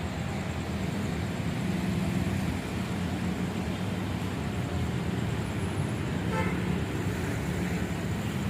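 Steady low engine rumble with one short horn toot about six seconds in.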